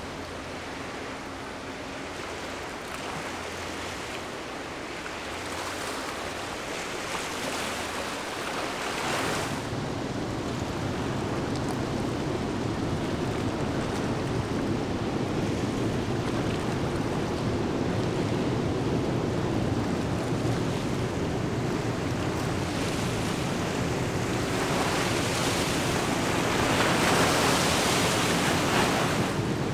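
Water wash and wind on the microphone as a large container ship passes close by. A low rumble builds after about nine seconds, and the noise is loudest near the end.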